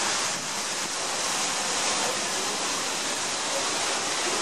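Paddle wheels of the 1928 paddle steamer Stadt Luzern churning the lake water as she starts to pull away from the pier: a steady rushing of water.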